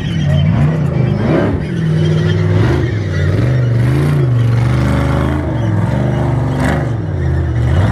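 Vehicle engine running continuously, its pitch rising and falling several times with the throttle.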